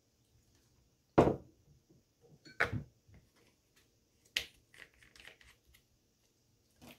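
Handling of a plastic sinus rinse bottle and glass measuring cup on a wooden table: three sharp knocks about a second and a half apart, then a run of lighter clicks as the bottle's cap is fitted.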